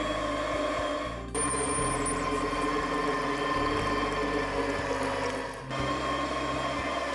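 Naumann NM-300 electric meat grinder running steadily as it minces strips of mutton, with an even motor hum; the sound breaks off and resumes abruptly about a second in and again near the end.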